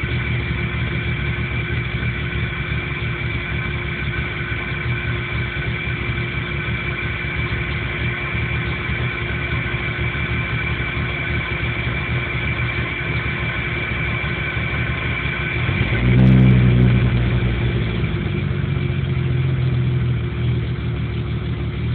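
1997 Jeep Cherokee engine at a rough idle, blipped briefly about two-thirds of the way through and settling back. The engine won't idle right and dies under power, with no fault codes stored.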